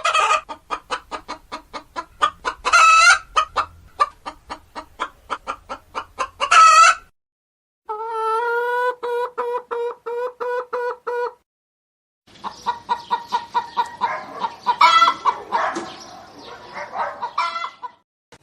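Domestic hens clucking in fast, even series of about four clucks a second, with two louder squawks, then a steadier pitched, pulsing call and a denser run of clucks. The three stretches are separate recordings, each cut off by a short silence.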